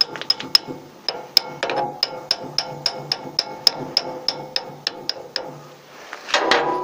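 Light metal-on-metal taps, evenly spaced at about four a second with a ringing note, as the first half of an IV-98E vibrator's unbalance weight is tapped onto the keyed motor shaft. A short louder noise follows near the end.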